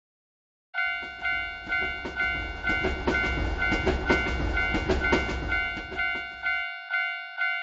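Japanese railroad crossing bell ringing "kan-kan" about twice a second while a train passes, with a low rumble and clacking wheels. The train sound stops near the end and the bell rings on briefly alone before cutting off.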